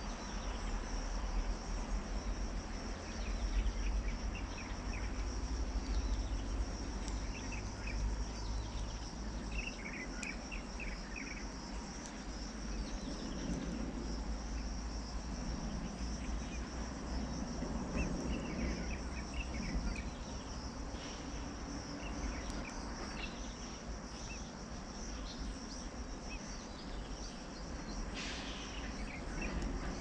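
Steady high-pitched insect chorus, with short clusters of faint high chirps every few seconds and a low rumble underneath.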